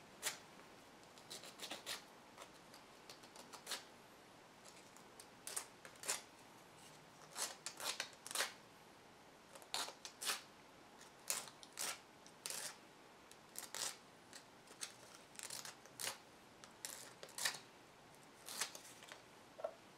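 Sandpaper rubbing against a small 3D-printed plastic symbol in short, irregular scratchy strokes, faint. The outside of the piece is being sanded down so it fits more loosely into the ring.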